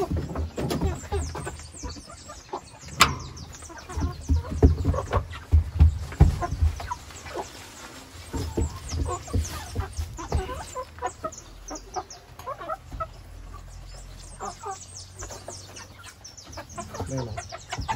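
Chickens clucking, among scattered knocks and rustles.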